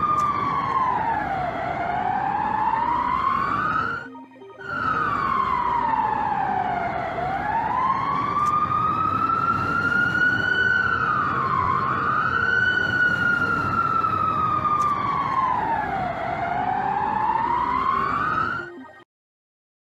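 Emergency alert siren wailing, its pitch sliding slowly down and back up in long cycles of about five to six seconds, over a steady background hiss. It breaks off briefly about four seconds in, dips quickly once near the middle, and stops abruptly about a second before the end.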